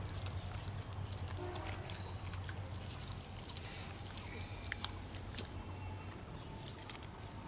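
Small clicks and rustles of hands picking fish out of a muddy cast net, with a few sharper clicks in the second half, over a low steady hum.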